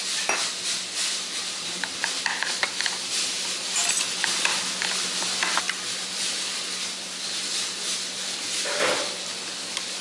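Metal chopsticks clicking and scraping against a porcelain plate and sauce bowl while picking up and stirring slices of raw fish, a scatter of light clicks over a steady hiss.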